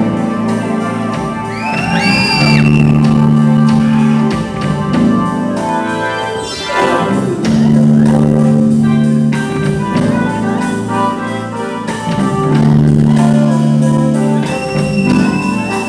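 Music: long held chords that restart every two to three seconds, with short sliding high notes near the start and end and a falling sweep about six seconds in.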